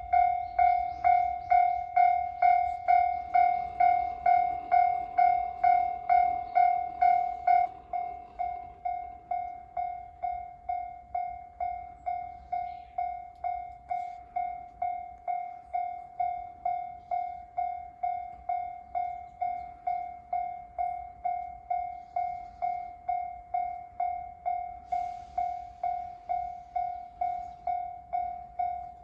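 Japanese railway level-crossing warning bell ringing with an even electronic ding, between two and three strikes a second. About eight seconds in it drops clearly in volume and keeps ringing at the same pace.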